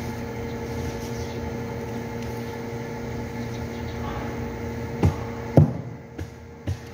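Steady mechanical hum of factory machinery with a low pitched drone. About five seconds in the hum fades and music with a deep bass-drum beat starts.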